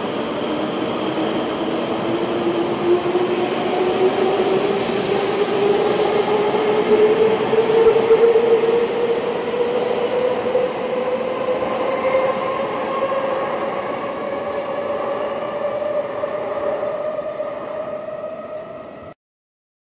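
Taiwan High Speed Rail 700T bullet train pulling out along the platform, its electric traction motors giving a whine that rises steadily in pitch as it gathers speed, over the rumble of the moving cars. The sound cuts off suddenly near the end.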